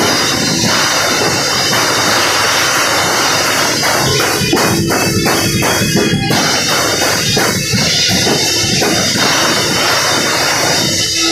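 Live rock band playing loud: drum kit and electric guitars, with a run of regular hits about halfway through.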